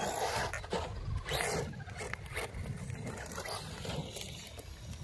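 Radio-controlled car driving on tarmac: uneven bursts of motor and tyre noise, the strongest about a second and a half in, with a few short knocks.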